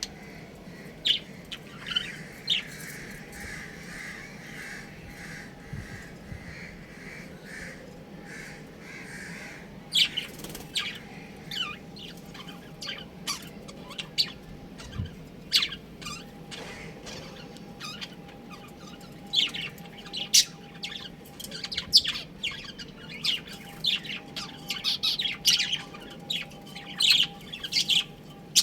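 A colony of budgerigars chattering: a soft continuous warble for roughly the first ten seconds, then many short sharp chirps and squawks that get busier toward the end.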